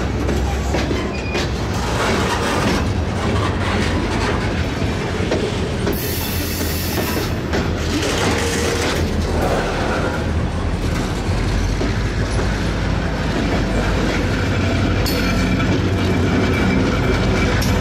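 Freight train rolling past, its wheels clacking over the rail joints above a steady low diesel rumble. A brief high hiss or squeal comes about six seconds in.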